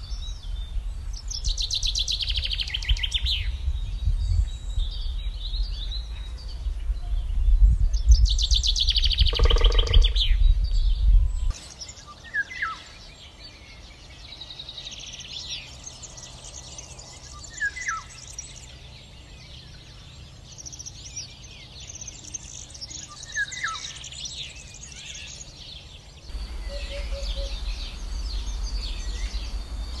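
A common chaffinch sings its descending trilled song twice over low wind rumble. After a cut to a quieter recording, a Eurasian golden oriole gives three short fluting whistles among fainter high birdsong. Near the end, a hoopoe gives a short run of low 'oop-oop-oop' notes.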